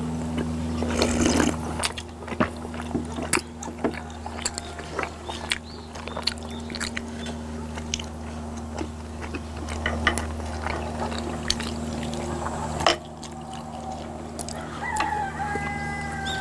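Close eating sounds: a slurping sip of sujeonggwa from a glass bowl about a second in, then chewing and forks and spoons clicking against glass bowls, over a steady low hum. Near the end a drawn-out pitched animal call is heard.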